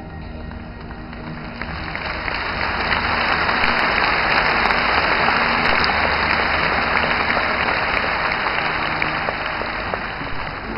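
A large arena audience applauding, swelling in over the first couple of seconds and fading near the end. A live symphony orchestra's held notes sound faintly underneath.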